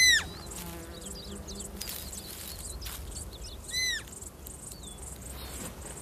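Roe deer fawn giving two short, high-pitched bleats, each rising and then falling: one at the start and another about four seconds in. Small bird chirps sound faintly between them.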